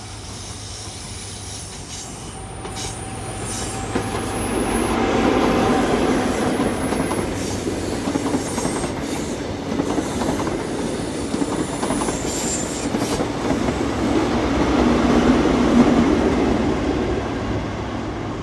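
High Speed Train with Class 43 diesel power cars passing through a station on a curve. Engine hum and wheel rumble build from about two seconds in and swell twice, with high wheel squeal on and off.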